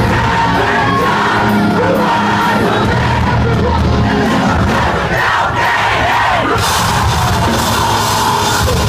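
Metal band playing a song live: loud drums, bass and guitars with the singer's vocals over them and the crowd shouting along. Heard through a phone microphone, so it is harsh and distorted.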